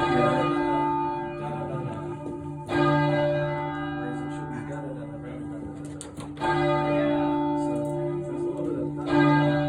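A heavy church bell from a twelve-bell change-ringing tower, struck four times about every two and a half to three and a half seconds. Each stroke rings on with a deep hum and fades slowly until the next.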